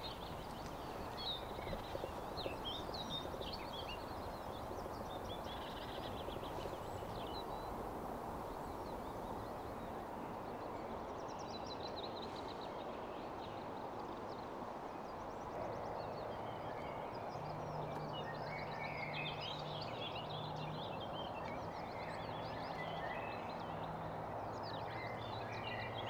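Forest ambience: songbirds singing and calling with many short chirps and trills over a steady background hiss. A low steady hum comes in about halfway through.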